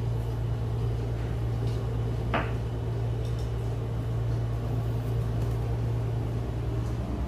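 Steady low hum, with a single short clink about two and a half seconds in.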